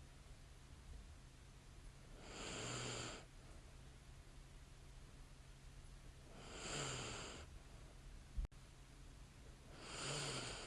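A sleeping woman breathing slowly and deeply, three long breaths about four seconds apart, each with a short, light low snore. One sharp click between the second and third breath, over a faint steady hum.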